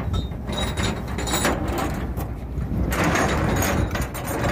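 Metal chain clanking and scraping on a boat's steel deck as a moored wave buoy with its chain is handled for deployment, over a steady low rumble.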